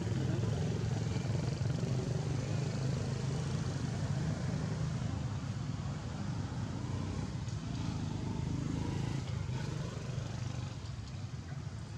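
A steady low hum of a motor vehicle engine running, with no sharp events.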